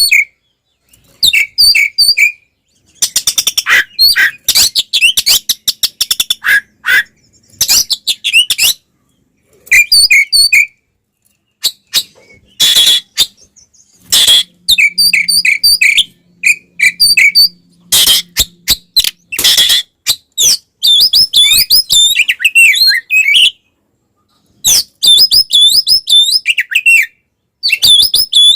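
Oriental magpie-robin (kacer) singing its aggressive 'fighting' song in loud phrases separated by short pauses: runs of repeated whistled notes, fast rattling trills, and a few harsh rasping calls.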